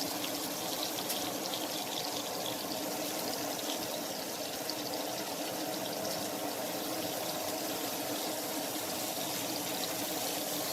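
A steady stream of water pouring, with no break, as water is added for cooking the orzo.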